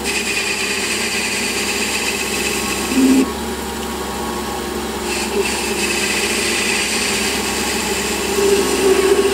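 Warco metal lathe running while its cutting tool takes a facing cut across a metal pulley blank, with a steady machine hum and a hiss of cutting. The cutting hiss stops about three seconds in, just after a short louder hum, and resumes about two seconds later.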